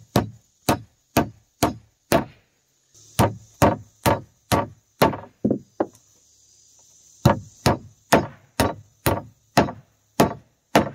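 A hammer driving 6D 2-inch nails through a truss gusset into the wood: sharp blows about two a second, in three runs with short pauses between them.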